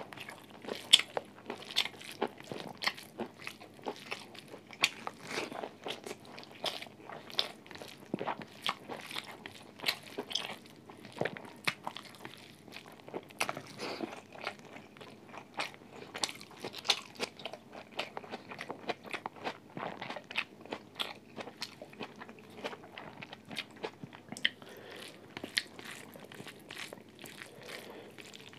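A person eating close to a mobile phone microphone: crisp crunching bites and chewing, with sharp, irregular crunches coming several times a second.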